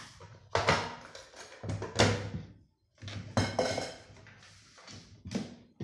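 Assorted objects on a cluttered worktable being shoved aside and set down: a run of clattering knocks and scrapes, five or six of them, the loudest about two seconds in.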